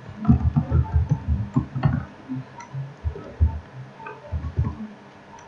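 Typing on a computer keyboard: a quick, irregular run of keystroke clicks, several a second, with a few pauses between words.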